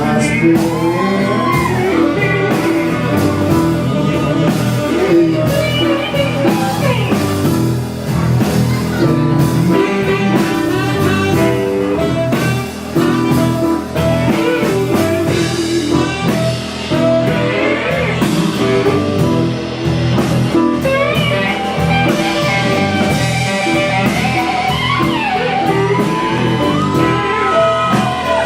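Loud rock music with guitar, drums and a singing voice.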